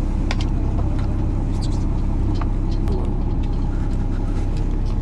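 Fishing boat's engine running with a steady low rumble, with scattered light clicks of metal tongs and paper bowls as ramen is served.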